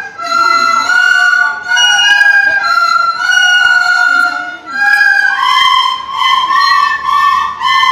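Recorder playing a simple folk-song melody in clear held notes, the pitch stepping from note to note with short dips between phrases.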